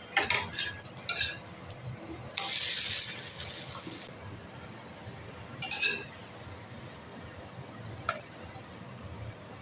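Kitchen utensils clinking and scraping against cookware in a few separate knocks, with a short hiss lasting about a second and a half a few seconds in.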